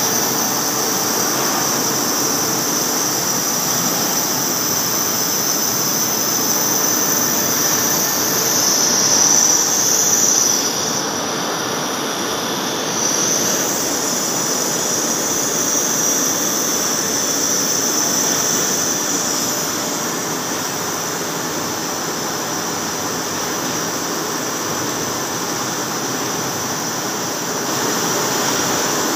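CNC lathe turning a large metal roll, the cutting tool cutting grooves into it and throwing off chips: a steady machining noise with a high hiss, briefly louder about ten seconds in and a little quieter afterwards.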